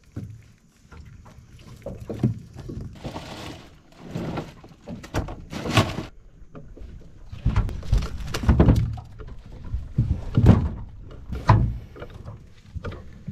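Irregular knocks and thuds of gear being handled in a small boat, most likely a crab pot being hauled and worked over the side, with a short rush of water about three seconds in.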